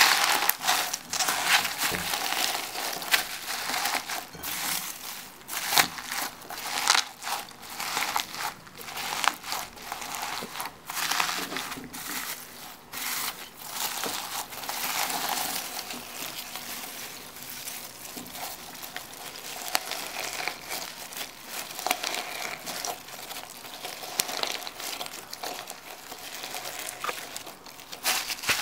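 Hands squeezing and kneading a bowlful of small foam beads mixed into slime, giving dense, irregular crunching and crackling. It is louder and busier in the first half and softer in the second.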